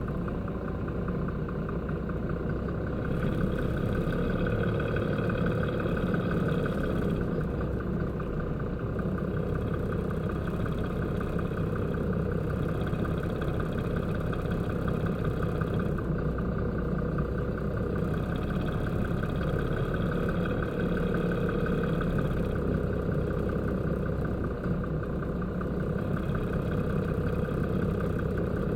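Concrete mixer truck's diesel engine running steadily at idle or crawling speed, with a slight rise in level about three seconds in.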